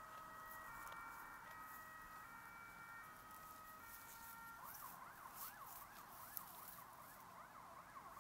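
Faint emergency-vehicle siren: held tones that switch in steps between pitches, changing about halfway to a quick rising-and-falling wail that repeats about twice a second.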